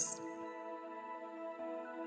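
Soft ambient background music of sustained, held tones, with no beat.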